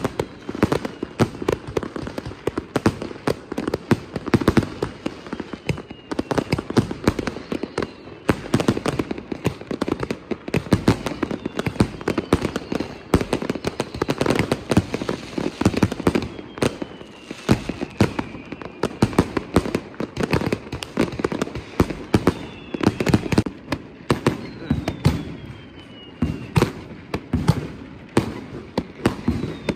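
Dense, continuous firework and firecracker explosions going off on all sides, an unbroken crackle of bangs, with now and then a firework whistle falling in pitch.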